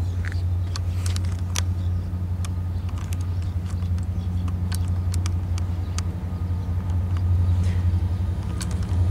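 A passing train gives a steady low rumble, with scattered light clicks above it.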